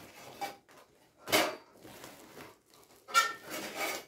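Rustling of a woven plastic sack as thin, stiff sheets are pulled out of it. There are two sharp clinks or rattles of the sheets, one about a second and a half in and a louder, briefly ringing one about three seconds in.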